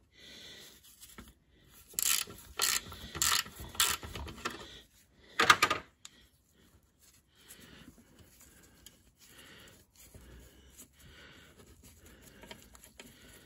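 Socket ratchet loosening a 10 mm bolt on a car's underbody drip pan, giving about five sharp clicks a couple of seconds in and a louder one a little later. After that come only faint handling noises.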